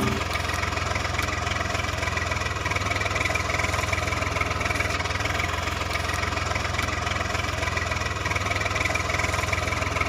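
Steady, unbroken engine idling sound with a low hum, going with a toy farm tractor towing a trailer.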